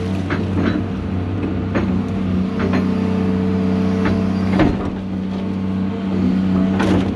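Diesel engine of a John Deere 250G LCR excavator running steadily, with scattered sharp cracks and snaps of wood being broken up.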